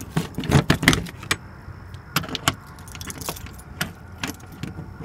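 Keys jingling and a metal padlock clicking against a door hasp as it is handled and locked, in a series of irregular sharp clicks.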